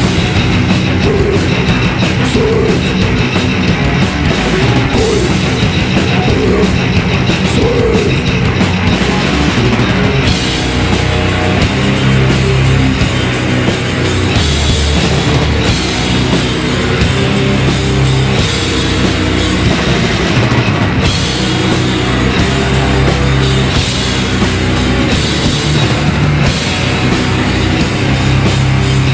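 A heavy metal band playing live at full volume: two distorted electric guitars, bass and a drum kit.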